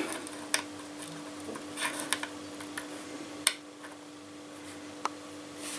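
Small metal screwdriver bits clicking against a hard worktop as they are handled and set down: about five sharp ticks at uneven intervals, over a steady hum.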